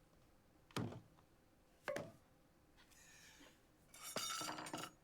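Foley slams: objects banged down hard on a surface, sharp knocks about a second apart, the second with a brief metallic ring, then a longer, busier clattering burst near the end.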